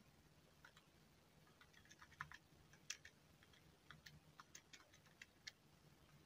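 Faint clicks of calculator buttons being pressed, about twenty keystrokes at an uneven pace while a calculation is entered.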